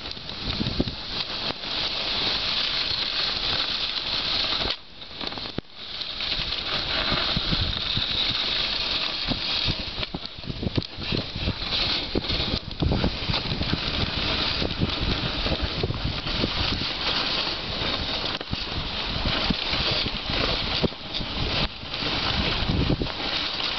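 Dog sled on the move over snow: a steady hiss from the runners with a rapid patter of the dogs' paws, dropping away briefly about five seconds in.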